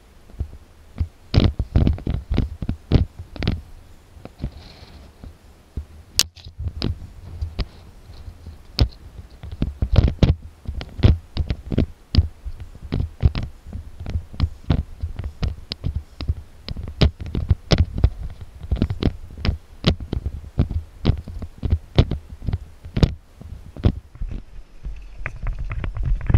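Footsteps and knocks of someone walking and climbing over bare rock, heard through a body-worn action camera as an irregular string of dull thumps and clicks, about two to three a second.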